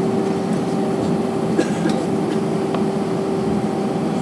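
Steady drone inside the cabin of an Airbus A321-214 airliner taxiing, its CFM56 engines at taxi power, with a constant tone running through it and a few faint clicks.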